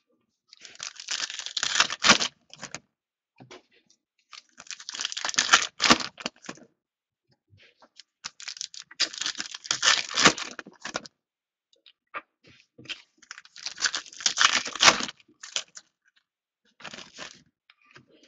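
Foil trading card packs being torn open and crinkled by hand, in four bursts of a couple of seconds each about four seconds apart, with a shorter one near the end.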